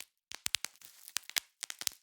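Bubble wrap being popped by hand: an irregular string of sharp pops, about a dozen, with crinkling of the plastic sheet between them near the middle.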